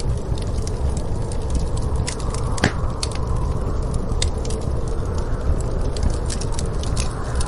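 Wood fire crackling, with frequent sharp pops and snaps over a steady low rumble of storm wind that swells a little toward the end.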